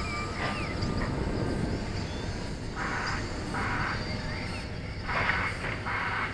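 Small electric RC plane's motor and propeller running as it flies past and climbs away: a faint steady whine over low rumbling noise, with four short bursts of noise in the middle and near the end.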